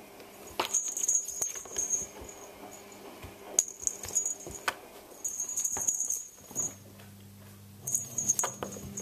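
A small bell jingling in four short bursts, with clicks and light patter of a cat's paws batting a string wand toy across a wooden floor.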